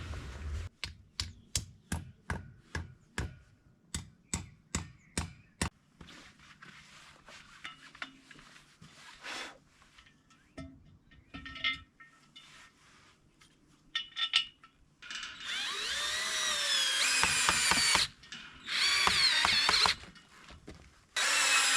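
A run of sharp, evenly spaced ratchet-like clicks, about two a second, then a power drill running in several bursts with a whine that wavers in pitch; the drill bursts in the last seconds are the loudest part.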